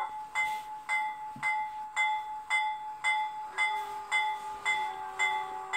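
Sampled locomotive bell from an ESU LokSound V4 sound decoder in an HO Athearn gas turbine model, ringing steadily at about two strikes a second. A steady lower tone comes in a little past halfway.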